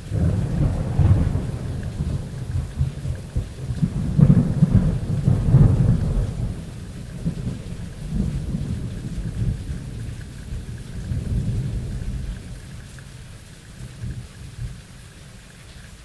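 Thunderstorm: a long rolling peal of thunder rumbles in at the start, swells to its loudest about four to six seconds in, then fades away over the next several seconds, over steady heavy rain.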